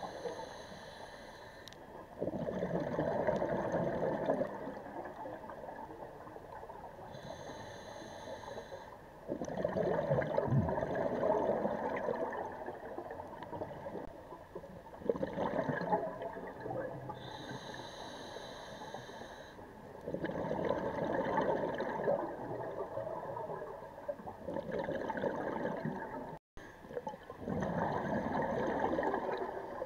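Scuba regulator breathing underwater: a short hissing inhale through the regulator, then gurgling rushes of exhaled bubbles. The breathing cycle repeats every several seconds.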